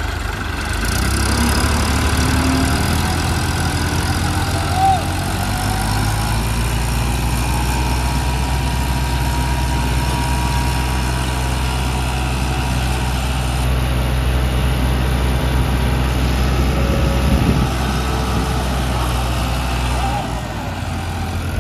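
Tractor diesel engines running hard under load as a New Holland 3630 strains to pull a stuck John Deere 5210 free, its rear tyres spinning in loose soil. A steady low engine drone that picks up about a second in and eases off near the end.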